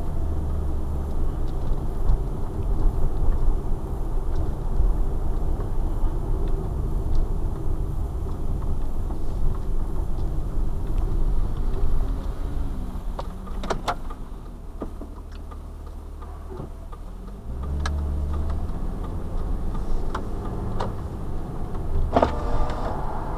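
Car engine and road rumble heard from inside the cabin while driving slowly, easing off for a few seconds near the middle as the car slows at a junction, then picking up again as it pulls away. A few scattered clicks sound over it.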